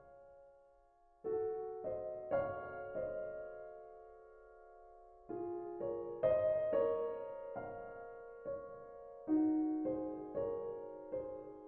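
Slow, gentle piano background music: soft chords struck in groups, each left to ring and fade, with a short pause in the middle.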